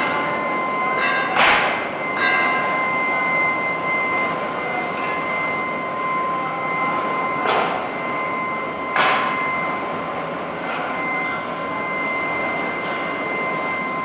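Induction melting furnace running at 450 kW: a steady high-pitched whine with a second, higher tone above it, over a constant rushing noise. Sharp metal clanks cut in about a second and a half in and twice between seven and nine seconds in, as a steel rod works the melt in the crucible.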